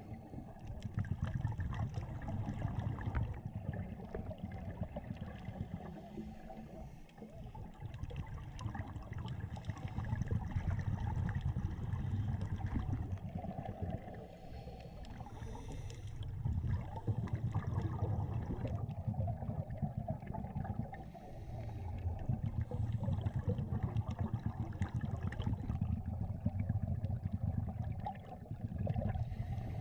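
Underwater sound through a camera's housing: a scuba diver's regulator breathing, a short hiss every several seconds followed by a long rush of exhaled bubbles, over a low rumble of moving water with steady fine crackling.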